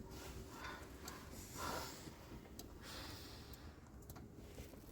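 Faint, heavy breathing of a person, several breaths about a second apart.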